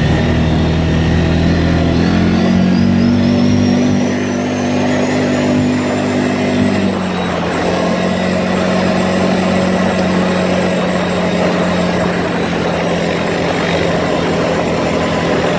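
ATV engine running while riding along a dirt trail, its pitch stepping up about two seconds in and dropping back about seven seconds in, with a faint high whine rising as it speeds up.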